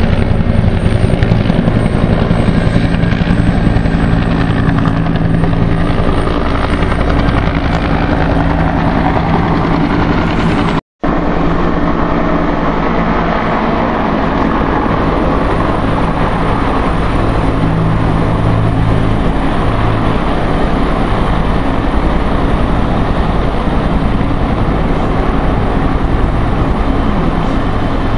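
Agusta-Bell AB 212 helicopter running loud and steady nearby, a low steady hum under a wide rushing noise from its two-blade main rotor and twin turboshaft engines. The sound cuts out for a moment about eleven seconds in.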